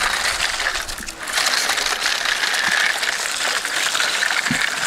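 Homemade wire toy cars with bottle-cap and plastic wheels rattling and clicking as they are pushed over sandy ground, a steady busy clatter that dips briefly about a second in.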